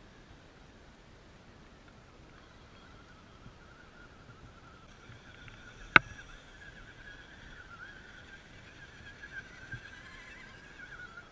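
Electric motor and gear whine of RC scale crawler trucks working slowly up a rock, a wavering high whine that grows louder over the second half. One sharp knock cuts through about halfway.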